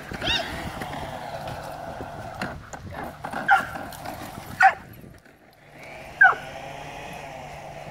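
Giant Schnauzer puppy giving about four short, sharp yips and barks, the loudest two near the middle and about six seconds in, the last one falling sharply in pitch, over a steady low hum.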